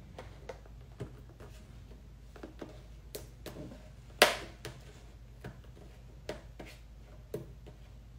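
Fingers picking and pulling at the taped flap of a cardboard toy box: scattered small taps and scrapes, with one sharper, louder click about four seconds in.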